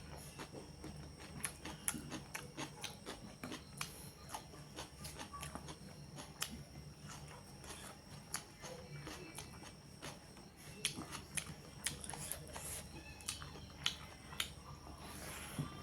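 Close-miked eating of chicken curry: chewing and biting, heard as many irregular sharp clicks, over a steady low hum.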